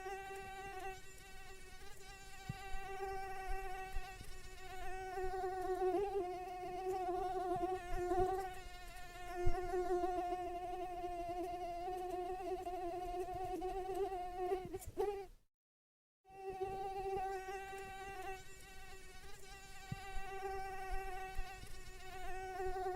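Mosquito whine in flight: a steady, slightly wavering buzz from its beating wings. It cuts out for under a second about fifteen seconds in, then resumes.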